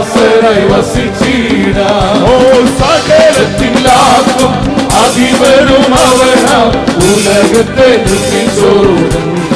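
Group of men singing a Malayalam Christian worship song together over a band with bass guitar, with a tambourine and percussion keeping a steady beat.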